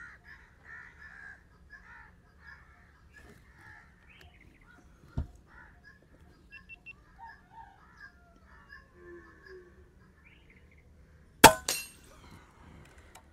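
A single sharp crack from a P15 air rifle being fired near the end, after a dull knock about five seconds in, with birds calling faintly in the background.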